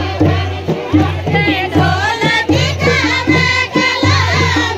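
Chanchari, a Kumaoni folk song sung in chorus by the dance line, with a steady beat of about two strokes a second.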